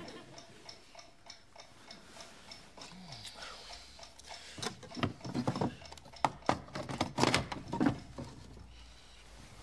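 Mechanical alarm clock ticking on a bedside table. From about four and a half seconds in comes a run of sharp knocks and clunks as the clock is picked up, handled and knocked against the bedside table.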